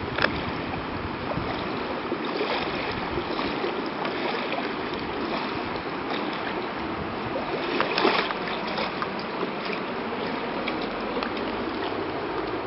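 Floodwater sloshing and splashing steadily, with a louder splash about eight seconds in.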